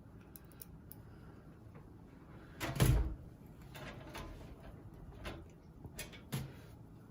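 Clicks and knocks of hand work on a PC case's front panel as the fan screws are driven in, with one louder clack about three seconds in and several lighter clicks after it.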